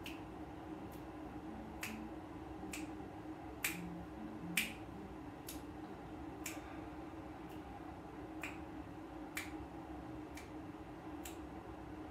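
Finger snaps keeping a steady beat, about one a second, over the steady low hum of room ventilation.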